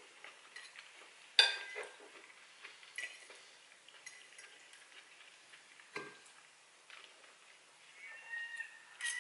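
Metal fork clinking and scraping against a ceramic bowl, the sharpest clink a bit over a second in, with a few lighter taps after. Near the end, seagulls start calling.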